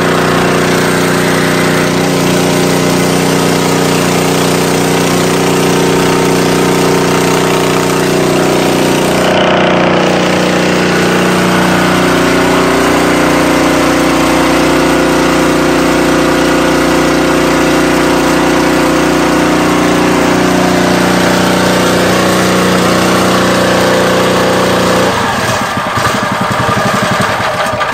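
Small petrol engine driving a high-pressure water mist pump, running steadily under the hiss of the mist jet. About three seconds before the end its steady note breaks up into a lower, uneven running.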